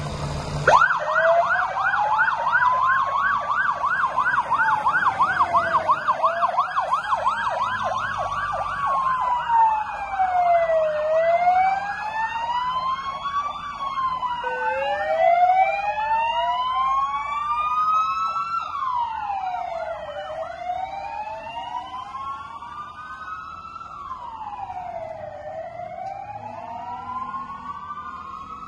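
Fire engine sirens switch on about a second in. A fast yelp and a slow rising-and-falling wail sound together, and a second wail joins about halfway, overlapping the first. The sirens grow fainter near the end as the trucks drive off.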